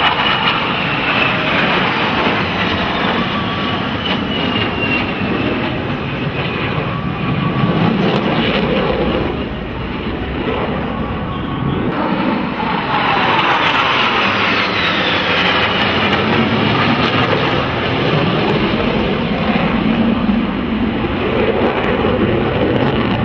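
Jet engines of three twin-engine F/A-18 fighters flying past in formation: a loud, steady rush, with a falling whine as the jets pass near the start and again about 14 seconds in.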